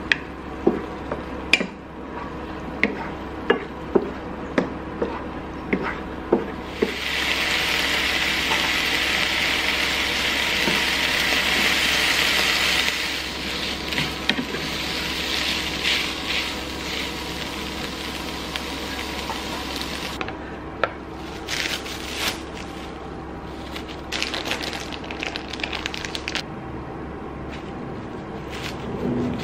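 Ground meat frying in a ceramic pan, a wooden spatula knocking against the pan as it is stirred; about seven seconds in a loud sizzle rises for several seconds, then stirring goes on with lighter taps. Near the end, crinkling plastic wrap as tortillas are handled.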